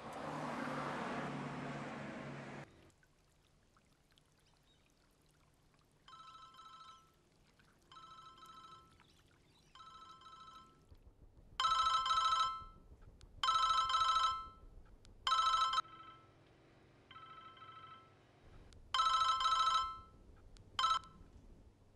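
A telephone ringing in repeated trilling bursts of about a second each, faint at first, then loud. In the first few seconds a rushing noise cuts off abruptly.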